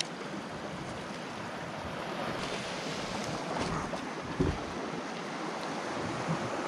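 Sea surf washing steadily against the rocks, with wind on the microphone. A few faint taps come through about the middle.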